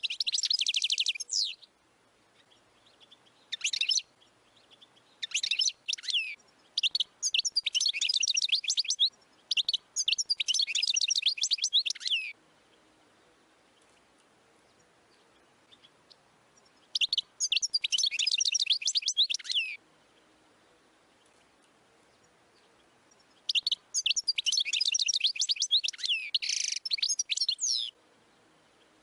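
European goldfinch singing: bouts of rapid, high twittering and trills lasting one to three seconds each, broken by pauses of a few seconds.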